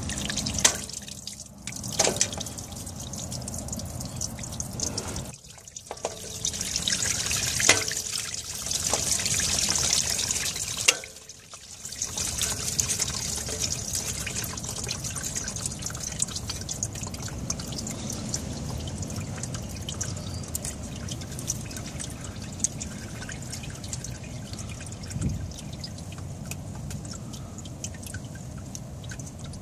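Liquid trickling and pouring in a steady flow, with scattered small clicks and knocks; the flow drops out briefly a few times in the first twelve seconds.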